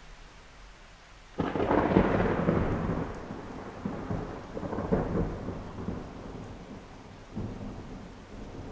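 Thunder: a sudden clap about a second and a half in that rolls and rumbles away, with further rumbles later, over the steady hiss of rain.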